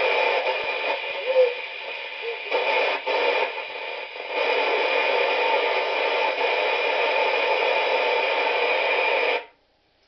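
Superstar 3900 CB radio's speaker hissing with open-squelch band static while the channel selector is turned. The static dips briefly a few times, then cuts off suddenly near the end as a front-panel knob is turned.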